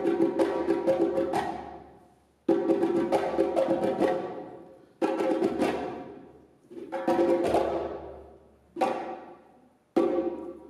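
Live percussion music: quick clusters of strikes on a pitched, ringing percussion instrument, each cluster dying away over a second or two before the next begins, about every two to two and a half seconds.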